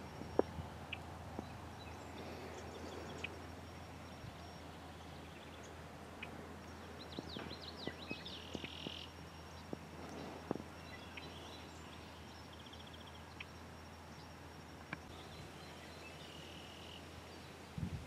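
Outdoor meadow ambience: small birds giving short high chirps and trills, several bunched together around the middle and more near the end, over a steady low hum with scattered faint clicks.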